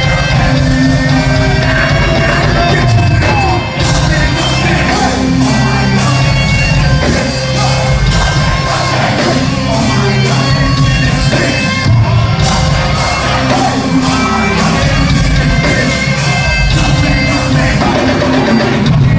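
Loud live hip-hop concert music over a PA, with shouted and sung vocals. A steady, heavy beat kicks in about four seconds in, after a brief drop.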